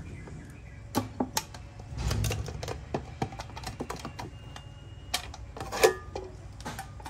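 Clicks and clinks of a metal mess tin being handled as its lid is worked off, with the loudest clank near the end.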